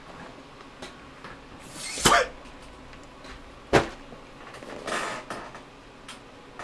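Handling noises: a burst of rustling about two seconds in, a sharp knock a couple of seconds later, and a softer rustle near five seconds.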